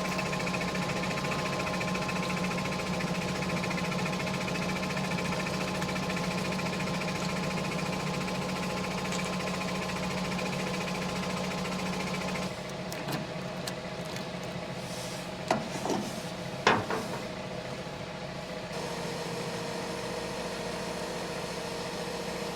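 A vehicle engine running steadily. The sound changes abruptly about halfway through and again near the end, and a few sharp knocks come in between.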